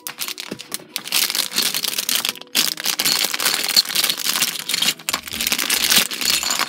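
Clear plastic parts bag crinkling and crackling continuously as it is handled and pulled open and LEGO bricks are taken out of it.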